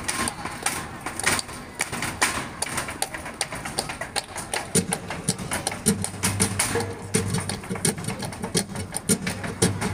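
Flamenco dancer's footwork (zapateado) striking the stage in rapid, uneven heel and toe taps, with hand clapping (palmas) mixed in. A low steady hum joins about five seconds in.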